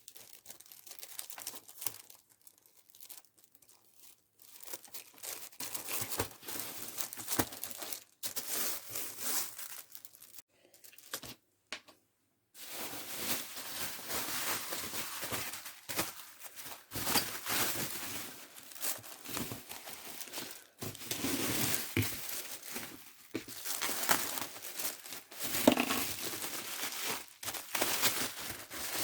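Packing material crinkling and rustling as it is handled and wrapped around a parcel, with tearing sounds. Sparse for the first few seconds and briefly silent about twelve seconds in, then dense, continuous rustling.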